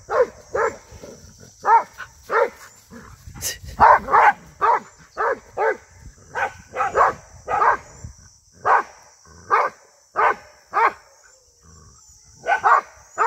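A dog barking repeatedly at a cow: short sharp barks about one or two a second, some in quick pairs, with a brief lull about eleven seconds in.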